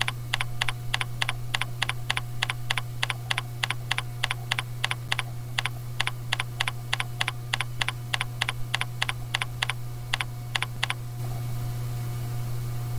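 Computer keyboard typing: an even run of key clicks, about three and a half a second, that stops about eleven seconds in, over a steady low hum.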